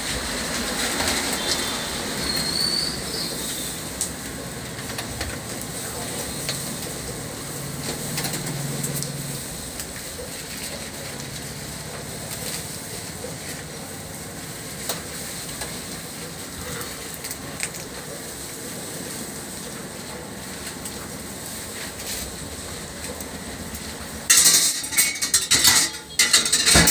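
Handling of a skewered roast pork belly on a wooden chopping board: a few light knocks and scrapes over a steady background hiss, then, about 24 seconds in, a loud rapid clatter of metal against the board.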